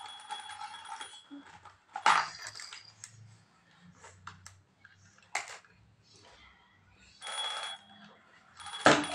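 Plastic baby toys being handled on a play mat: scattered clicks and knocks, with two short spells of jingling rattle, one at the start and one about seven seconds in.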